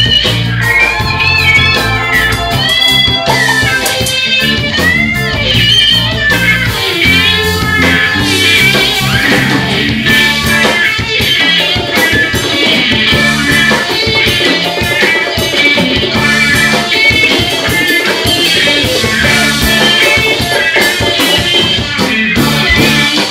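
Live reggae band playing: electric guitar taking a lead with sliding, bent notes over bass guitar and drum kit.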